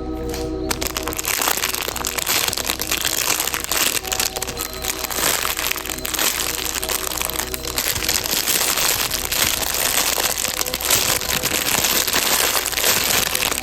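Crinkly plastic squishy being squeezed and handled, giving dense, continuous crinkling that starts about a second in, over background music.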